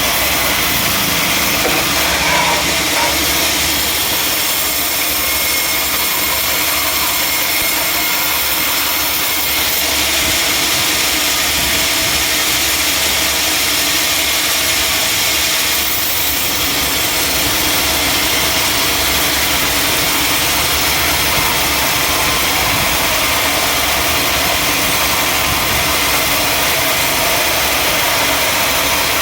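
Sawmill machinery running steadily: an even, continuous machine noise with no break or change.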